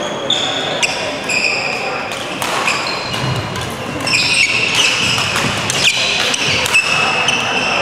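Badminton rally on an indoor court: many short, high squeaks of sports shoes on the court floor, with sharp racket strikes on the shuttlecock, busier from about four seconds in.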